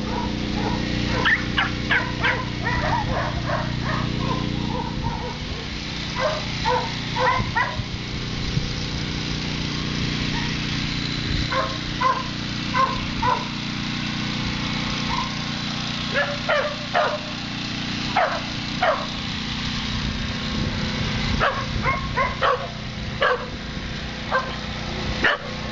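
Shelter dogs barking and yipping in short clusters with pauses between, over a steady low hum.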